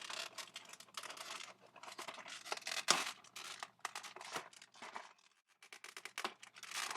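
Plastic wrap around a packaged action figure being crinkled and torn open by hand, in irregular crackly bursts, with a brief lull about five seconds in.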